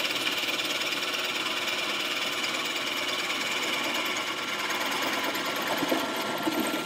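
Drill press running with a Forstner bit boring steadily through a wooden board, cutting it into a stream of chips.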